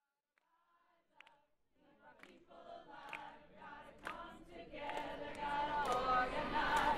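A group of voices singing together, fading in from silence about a second in and growing steadily louder, with a few sharp clicks among them.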